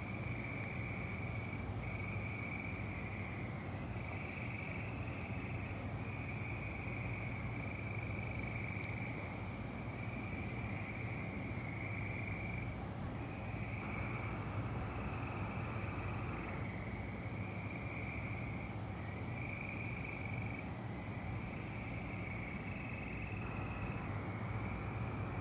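A dense chorus of spring peepers, many frogs calling at once in an unbroken high-pitched peeping. A lower-pitched trilling joins about halfway through and again near the end, over a steady low hum.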